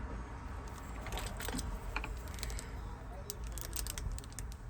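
Small metal clicks and clinks as the parts of a Honda Fit door lock cylinder are handled and fitted back together by hand. The clicks are scattered, with a quicker cluster past the middle, over a steady low hum.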